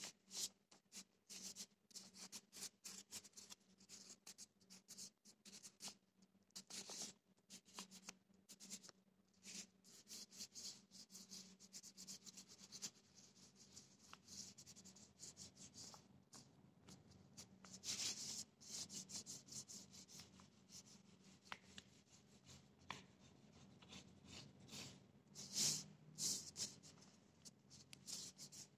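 Fingertips and palms rubbing and pressing on the back of a sheet of paper laid over an inked printing plate, burnishing it by hand to take a print: a quiet run of short, irregular papery scratching strokes, with a few louder rubs about 7, 18 and 26 seconds in.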